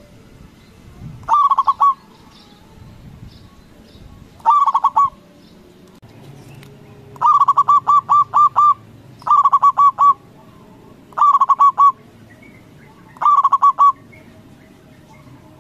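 Zebra dove (perkutut) singing. It gives six loud phrases of quick, clipped coos, each a short run of rapid notes. The phrases come every two seconds or so, and the one in the middle is the longest.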